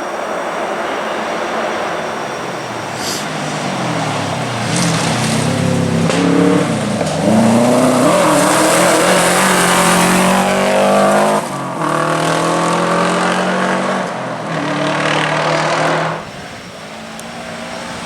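Subaru WRX rally car's turbocharged flat-four engine revving hard, its pitch climbing and dropping again and again through gear changes and lifts. It is loudest in the middle and falls away sharply near the end.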